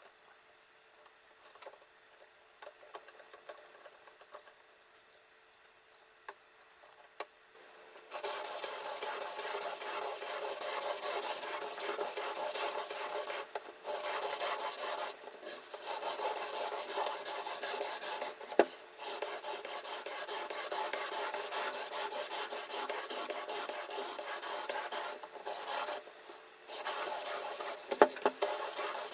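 A few faint clicks as the knife is clamped into a fixed-angle sharpener. Then, from about eight seconds in, steady rasping as a diamond sharpening plate on the sharpener's guide rod is stroked back and forth along the clamped blade's edge, broken by a few brief pauses.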